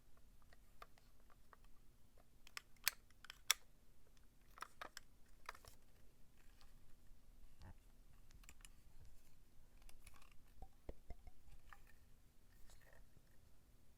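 Faint scattered clicks and light handling knocks, two sharper clicks about three seconds in, over a faint steady hum.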